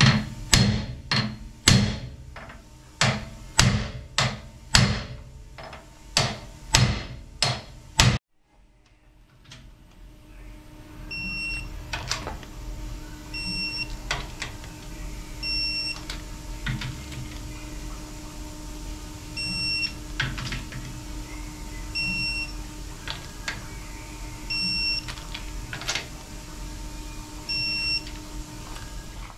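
A big hammer strikes an aluminum drift block about fourteen times at roughly two blows a second, driving Darton cylinder sleeves down to seat in an aluminum LS engine block, each blow ringing sharply. After an abrupt break, a digital torque wrench gives short high beeps every second or few as bolts are tightened, over a steady machine hum, with a few light clicks.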